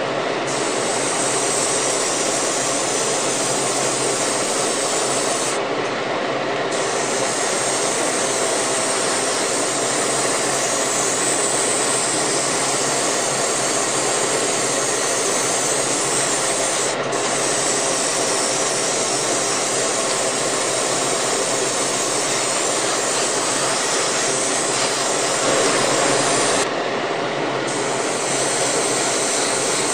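Airbrush hissing steadily as it sprays a flat clear lacquer top coat, together with the steady rush of a spray booth's extractor fan. The hiss thins briefly about six seconds in and again near the end.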